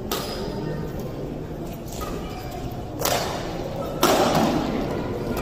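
Badminton rackets striking the shuttlecock in a rally: several sharp hits about a second apart, the loudest about four seconds in, ringing in a large hall over a background of crowd chatter.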